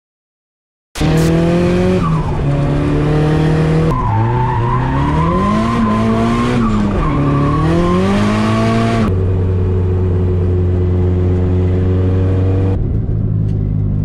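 Nissan S13's turbocharged four-cylinder engine, heard from inside the cabin and starting about a second in. The revs rise and fall several times, then hold steady for a few seconds.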